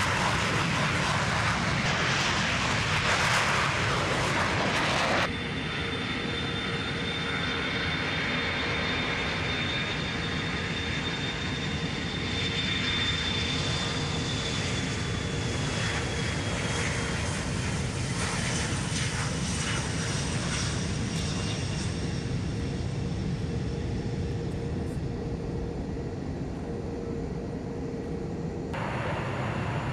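Jet noise from an F-15E Strike Eagle taking off, cut off abruptly about five seconds in. After the cut, a four-engine KC-135 tanker on its takeoff roll, its engines giving a steady rumble with a high whine that slowly falls in pitch.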